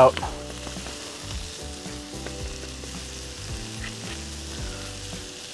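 Diced seasoned potatoes and crumbled chorizo sizzling steadily on a Blackstone flat-top griddle.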